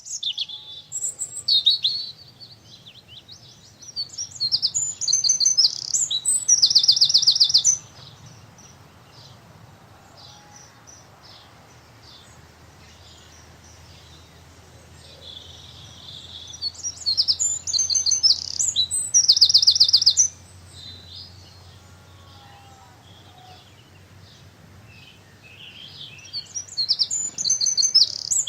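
A small songbird singing loud, high, fast song phrases in three bouts about ten seconds apart, each ending in a rapid trill, over a faint steady low hum.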